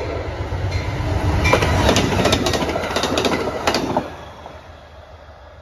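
Amtrak passenger train passing close by at speed: a swelling rush of wheels on rail with a quick run of sharp clicks as the wheels cross rail joints. The noise drops away suddenly about four seconds in as the last car goes by.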